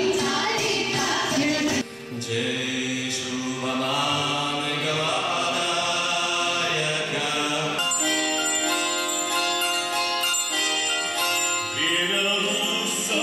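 Devotional music cut together in pieces, with abrupt changes. First comes chant-like singing over a harmonium. From about eight seconds in, a table zither plays held ringing notes, and a voice comes in near the end.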